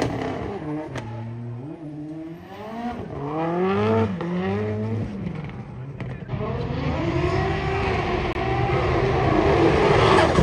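Drift car engines revving in repeated rising and falling sweeps as the throttle is worked through the drift. The sound is fainter in the middle and grows louder near the end as a car drifts closer.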